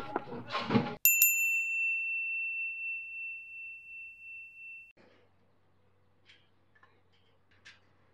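A small bell struck twice in quick succession about a second in, one clear high ring fading away for about four seconds before it cuts off abruptly.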